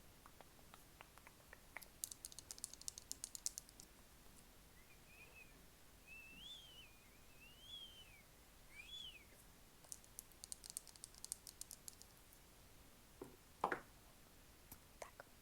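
ASMR tapping: two bursts of quick, crisp taps on a hard surface, a second or two each, with a few faint squeaky chirps between them.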